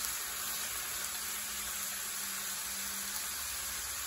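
Diced squash, purslane and green beans sizzling steadily in a hot frying pan while being stirred with a wooden spoon.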